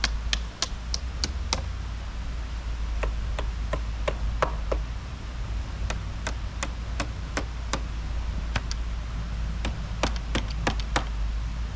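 Knife chopping on a wooden cutting board: runs of sharp strikes about three a second, with short pauses between runs.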